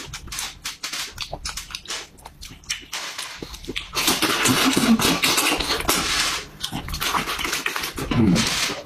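Close-miked noisy eating: wet chewing and lip smacking. A run of small clicks comes first, then a louder, longer stretch about four seconds in and another near the end.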